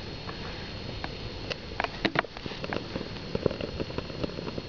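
Wax and wood-chip fire starters crackling with irregular sharp ticks as they catch alight in a small pellet stove, over a steady hiss.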